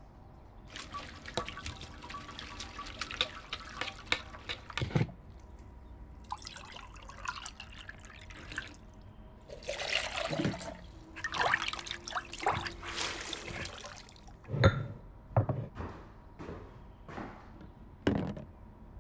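Liquid clay slip pouring and dripping out of an upturned plaster mould into a plastic jug, draining off the excess slip so that only the cast wall is left in the mould. Scattered knocks and clinks around it, the loudest a sharp knock a little past the middle.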